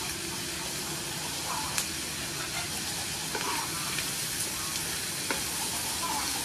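A stir-fry of vegetables and sea snails sizzling steadily in oil in a frying pan while a wooden spatula turns it, with a few sharp clicks.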